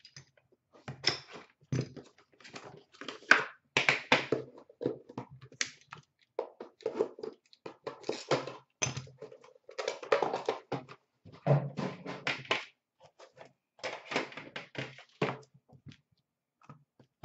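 Handling noise from opening a 2014-15 Upper Deck The Cup hockey box: a blade cutting through the wrap and cardboard, then the tin inside being slid out and set down, heard as irregular taps, rustles and knocks.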